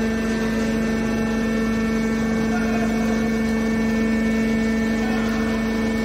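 Hydraulic metal baler running: its motor-driven hydraulic pump gives a steady, even-pitched mechanical hum.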